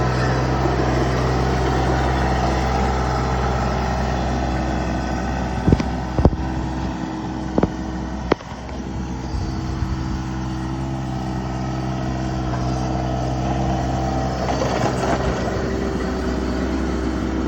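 Mini skid steer's engine running steadily, with four sharp knocks or clanks in the middle, followed by a brief drop in engine level that then slowly builds again.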